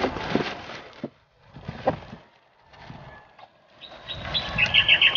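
Packaging being handled as a boxed air compressor is unpacked: rustling and a few knocks in the first two seconds, then a quick run of high squeaky chirps near the end.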